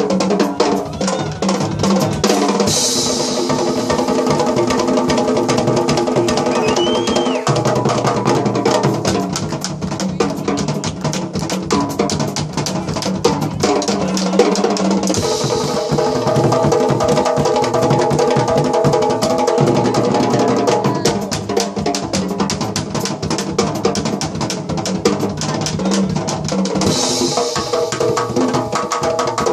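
Live jazz band with drum kit and Uruguayan candombe drums (chico, repique and piano drums) keeping up a dense, driving beat, under long held melody notes.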